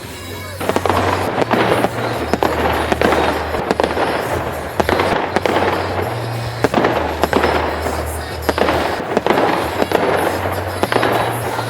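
Fireworks display: rapid, repeated bangs and crackling shell bursts, mixed with music carrying a deep, steady bass line.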